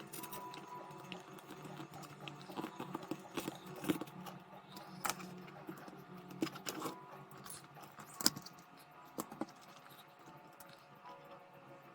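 Scattered small clicks and taps at irregular intervals from handling the calculator's plastic case and parts, the loudest a sharp tap about eight seconds in.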